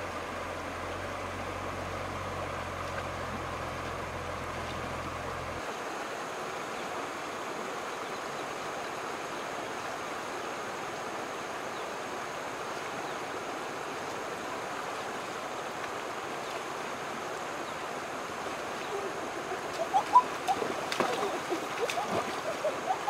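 Shallow river running steadily over stones. Near the end come a series of loud, irregular splashes as hands slap and scoop in the water.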